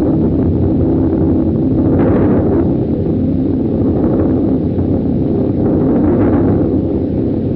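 Cartoon explosion sound effect: a loud, sustained rumble that holds steady for several seconds, with low droning tones under the noise.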